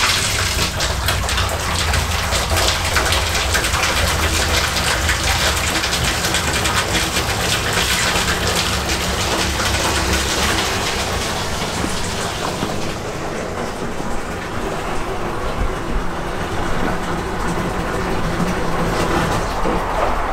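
Water from a hose pouring into a portable toilet's plastic holding tank, a steady splashing rush as the tank is filled with its charge of water. About twelve seconds in the hiss loses its top end and turns duller.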